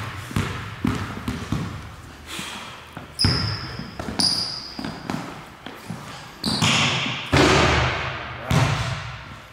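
Basketball bouncing on a hardwood gym floor as it is dribbled, each bounce echoing in the large hall. Two short high sneaker squeaks come about three and four seconds in.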